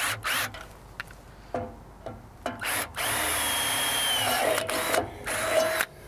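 Cordless drill boring into the RV's thin metal bumper from underneath: a few short bursts, then a steady run of about a second and a half with a whine that dips near the end, and one more short burst.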